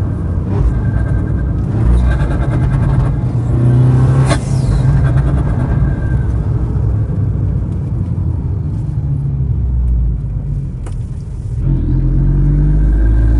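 Stage 3 tuned Abarth 595's turbocharged 1.4-litre four-cylinder and exhaust, heard from inside the cabin as the car slows down, with a few sharp cracks from the exhaust in the first half. The engine settles to a quieter run in the middle and picks up again near the end.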